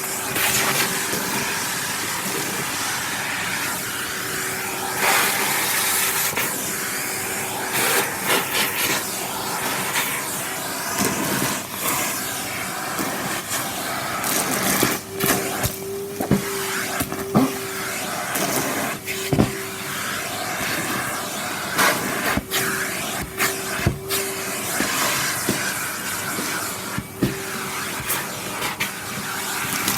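Numatic Henry canister vacuum cleaner running steadily, with a humming tone that comes and goes and scattered sharp clicks and knocks.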